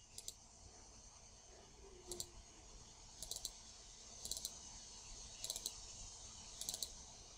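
Faint computer mouse double-clicks, about one pair a second, as folders are opened one after another.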